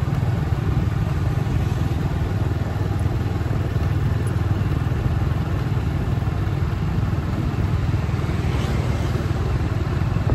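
Motorbike running steadily on the road: an even low rumble with road and wind noise.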